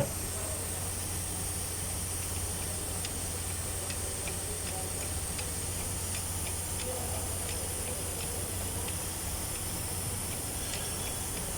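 Mercedes-Benz Actros PTO driveline turning a pump, running steadily with a hiss and low hum, and about two light ticks a second from the shaft. The ticking is the sign of a broken cross joint (universal joint) in the PTO shaft.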